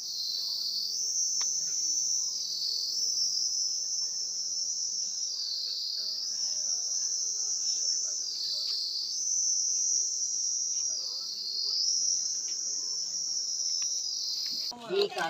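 Loud chorus of insects: a steady high-pitched buzz that drops lower for a moment about every three seconds. It cuts off suddenly near the end.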